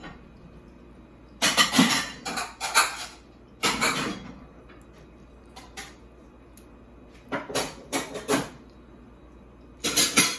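Eating and tableware noises from a child at a high-chair tray, with a fork and a ceramic bowl being handled. They come in four short clusters of clattering bursts with quiet gaps between.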